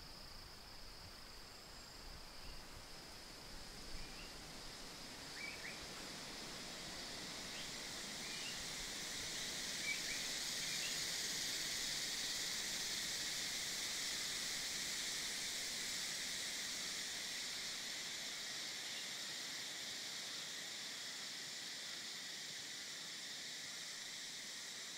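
Forest ambience: a steady high-pitched chorus of insects that grows louder about a third of the way in, with a few short bird chirps near the start.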